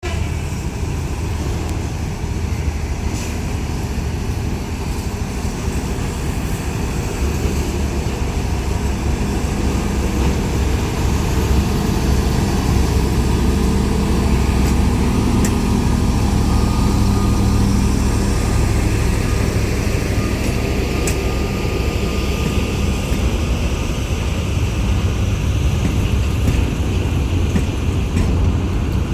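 Diesel engine of a heavy track-maintenance rail vehicle running steadily with a deep hum, getting a little louder about twelve seconds in.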